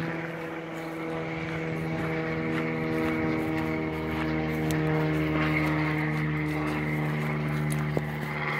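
Airplane flying over, its engine a steady drone that grows louder toward the middle and eases off near the end.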